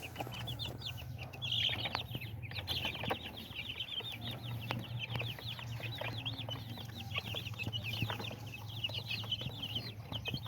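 Chickens calling, many short high peeps overlapping without a break, over a steady low hum.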